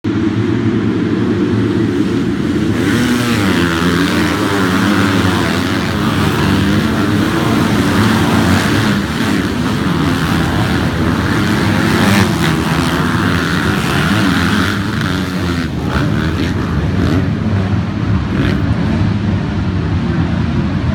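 A pack of MX2 motocross bikes at full throttle racing past, many engines revving at once in a dense, jumbled drone. It is fullest from a few seconds in until about two-thirds of the way through, then thins as the last riders go by.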